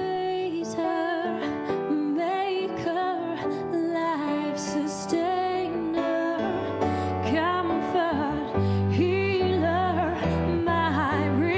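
A woman singing a ballad with vibrato over held chords from a backing band, live into a handheld microphone. A fuller bass comes in about three-quarters of the way through.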